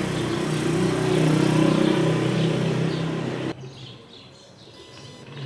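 A motor vehicle's engine running steadily with a low hum, cutting off suddenly about three and a half seconds in and leaving a much quieter street background.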